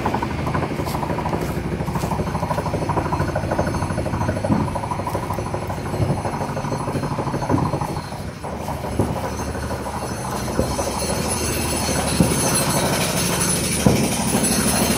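Steady machinery rumble with a fine rapid rattle, broken by a handful of sharp knocks or clanks every second or two.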